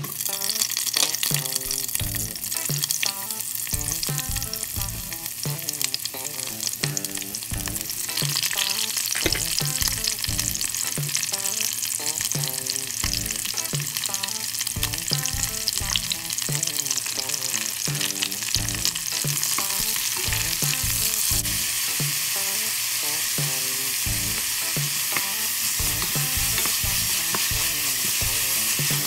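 Chopped vegetables (shallots, dried red chiles, mushrooms, bell peppers) sizzling in hot oil in a Dutch oven as they are stirred. The sizzle gets louder about eight seconds in and again later as more vegetables go in.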